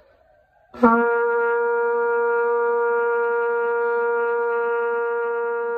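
Trumpets playing one long, steady note in unison, written C (sounding B-flat on B-flat trumpets). The note starts with a sharp attack about a second in and is held to the end with only a slight fade. It is a long-tone exercise to build a full sound with fast air and an open jaw.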